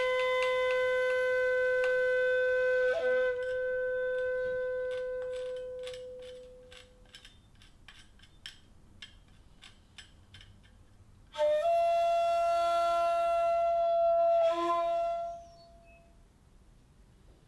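Chiba, the Chinese end-blown bamboo flute of the shakuhachi family, playing slow, breathy held notes: a long note with a small bend about three seconds in that slowly fades away, a pause with a few faint clicks, then a higher note with a bend near its end that stops about fifteen seconds in.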